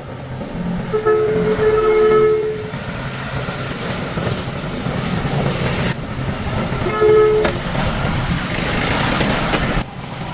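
A vehicle engine running steadily, with a horn sounding twice: a blast of about a second and a half near the start, and a short toot about seven seconds in.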